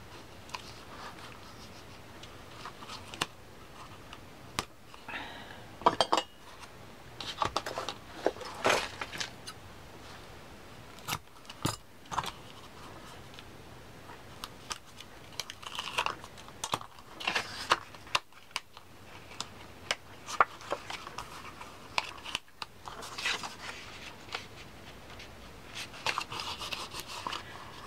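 Paper and cardstock handled at close range: short rustles, scrapes and taps as accordion-folded paper is creased and pressed flat by hand, with a few sharp clicks.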